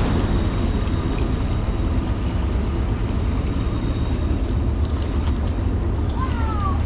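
Steady rushing of creek water, with a heavy low rumble of wind on the microphone.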